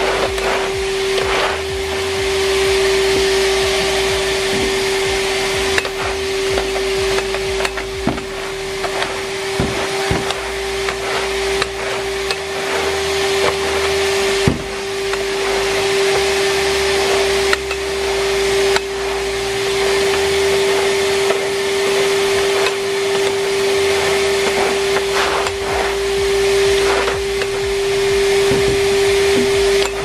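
Numatic Henry Wash vacuum cleaner running steadily: a constant motor whine over a rush of airflow, with a few light knocks along the way.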